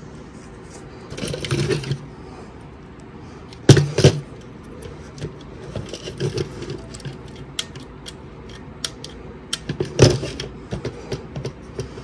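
Handling noise from an opened plastic smoke alarm: light clicks and taps, with sharp knocks about four seconds in and again near ten seconds.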